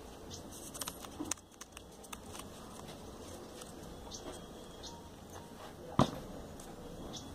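Light rustling and small clicks of hands handling a folded-paper origami model and a plastic glue squeeze bottle, with one sharp knock about six seconds in.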